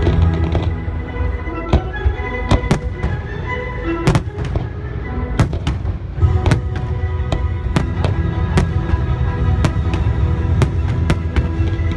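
Aerial fireworks bursting in a rapid, uneven series of a dozen or more sharp bangs and cracks, over music with a heavy bass.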